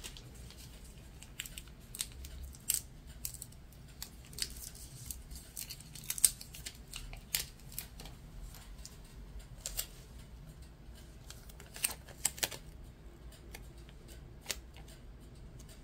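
Adhesive craft vinyl and clear transfer tape being handled and peeled from their backing, with scattered, irregular crackles and clicks of the plastic sheet.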